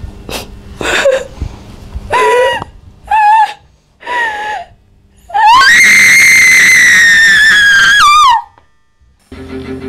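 A woman screaming: four short screams, then one long, high scream about five seconds in that lasts about three seconds and drops in pitch as it cuts off.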